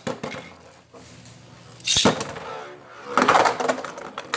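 Beyblade spinning tops, Zwei Longinus and Reverse Fafnir, launched into a plastic stadium about two seconds in, then spinning and clashing with a rattling, scraping sound.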